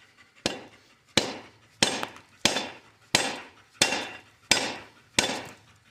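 Hammer striking the slip clutch of a Ford 504-1 baler eight times at an even pace, about one and a half blows a second, each blow ringing off the metal. The blows are knocking the stuck clutch apart.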